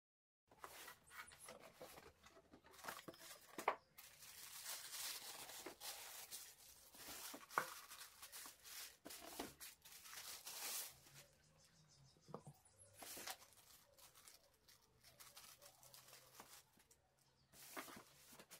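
Plastic bag rustling and crinkling as it is pulled off a boxed subwoofer. The rustling is loudest in the first half, with a few sharp knocks and clicks from handling the unit and its box.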